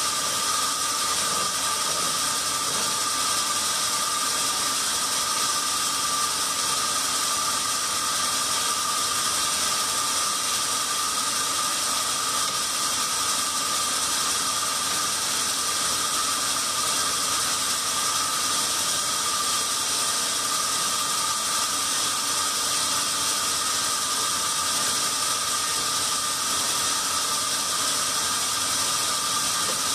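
Sawmill band saw running steadily: a constant hiss with a steady high tone over it, unchanging throughout.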